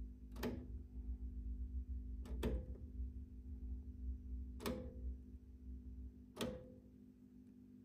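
Rotary selector switch on a valve tester clicking from position to position: four sharp clicks about two seconds apart, the second a quick double click, over a steady low hum. The switch is being stepped through the short-circuit test on the tube.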